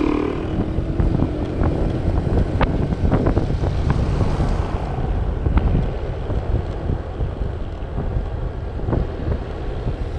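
Wind rushing over the microphone of a moving Honda motor scooter, heaviest in the low end, with the engine and road noise underneath as it picks up speed to about 50 km/h. A few sharp ticks come through a few seconds in.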